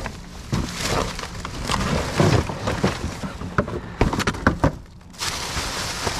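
Scrap and debris being handled: a run of irregular knocks, clatter and rustling, with a quick cluster of sharp knocks about four seconds in.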